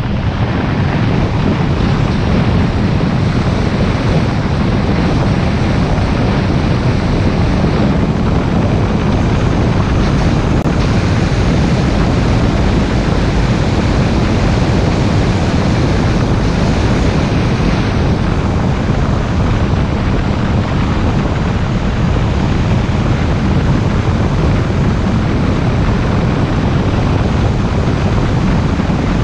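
Steady wind noise on the microphone and road noise from a moving car, a loud, even rush that is heaviest at the low end.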